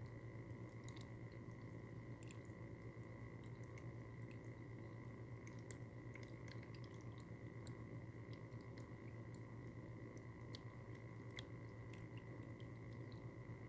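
Cat water fountain running up close: its small pump hums steadily, with faint scattered drips and ticks of falling water.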